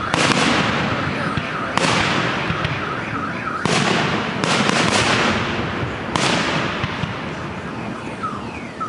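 Aerial fireworks shells bursting: five sharp reports about one to two seconds apart, each trailing off in a fading crackle.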